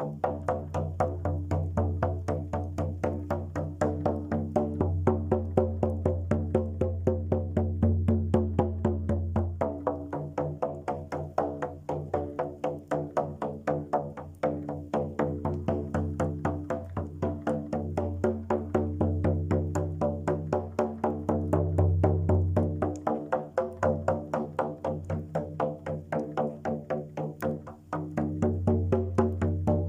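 Music: a fast, even beat of short knocks over a low drone of held tones that shift in pitch every few seconds.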